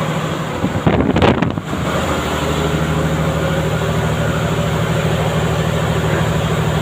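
Carrier 5H120 refrigeration compressor running steadily under test, a loud even mechanical hum. About a second in, a brief louder, rougher rush of noise rises over it for under a second.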